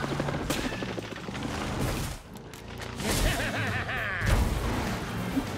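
Cartoon action soundtrack: background music with sound effects for a monster truck in mid-jump, and a heavy boom about four and a half seconds in.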